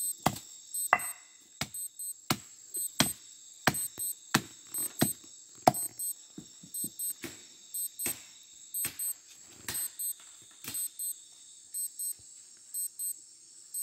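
A hand-held stone pounding a bundle of ambi fish-poison roots against a flat rock, giving sharp, irregular knocks about one every two-thirds of a second. The roots are being crushed to release the poison into the stream. The knocks grow softer and sparser near the end, over a steady high hiss.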